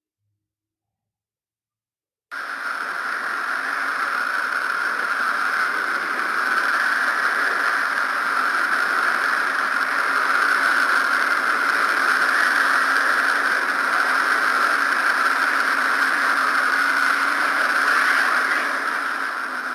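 A 'planet sound': a space sonification played as a steady rushing hiss, starting suddenly about two seconds in after silence and beginning to fade near the end.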